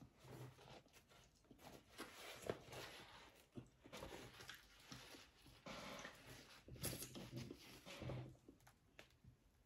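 Faint, irregular eating and handling noises: chewing, and fingers peeling the skins off ripe plums, with a paper napkin rustling.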